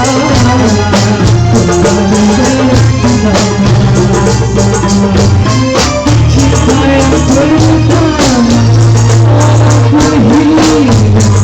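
Music: a melody over a steady bass line, with a dense rhythm of hand percussion.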